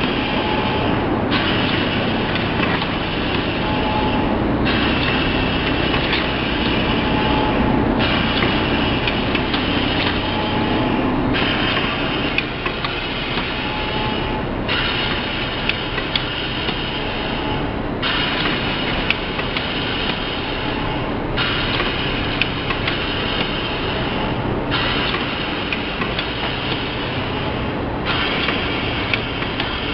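Automatic lunch-box sealing and packing machine running: steady mechanical noise with light clicks, its sound changing in a regular cycle about every three seconds as the machine indexes through its sealing cycles.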